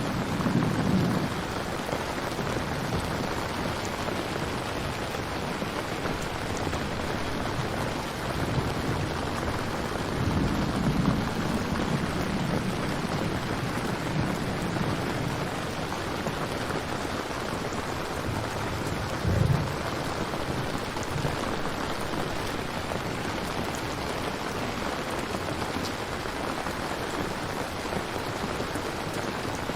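Steady heavy rain falling, with low rolls of thunder: one right at the start, a longer one about ten seconds in, and a short, sharp one about two-thirds of the way through.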